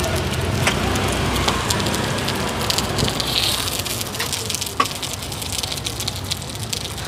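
Oil sizzling and crackling on a large flat frying pan as chive cakes fry in it, a steady hiss dotted with tiny pops, easing slightly in the second half.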